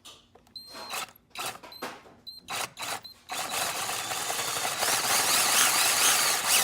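Electric drill with a large final-size bit boring a hole in a metal coolant part for a sensor: several short spins in the first three seconds, then a steady, louder run as the bit cuts through the metal.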